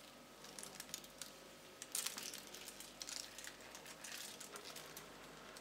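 Sesame seeds sprinkled by hand, landing on parchment paper on a baking tray in faint, scattered ticks, with a couple of slightly louder clicks about two seconds in.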